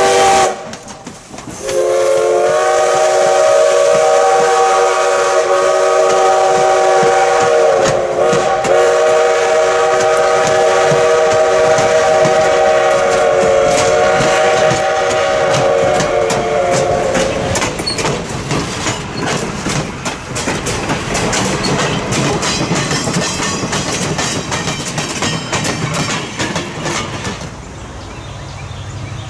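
Steam locomotive #58's multi-tone steam whistle gives the end of one blast, then a long blast of about fifteen seconds as the engine passes close by. The passenger coaches then clatter past, their wheels clicking rapidly over the rail joints.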